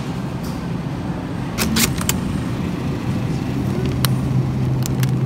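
Supermarket background with a steady low hum of a refrigerated produce case, growing stronger after about three seconds. A few sharp clicks come about a second and a half in and again around four and five seconds.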